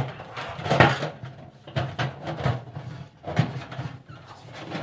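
Thin sheet tin scraping and knocking against a galvanized steel trash can as a cone is worked into its bottom: several irregular metallic knocks and scrapes, the sharpest about three and a half seconds in.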